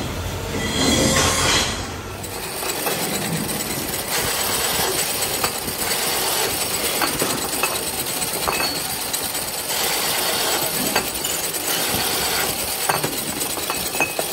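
A multi-spindle drilling machine boring spoke holes in the flange of a cast aluminium motorcycle wheel hub: a steady hiss of drilling with many small metallic ticks. For about the first two seconds a louder low rumble, as a barrow laden with hubs is moved.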